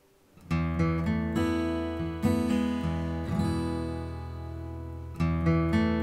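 Background music: acoustic guitar strumming chords, beginning about half a second in, each chord ringing and fading before the next.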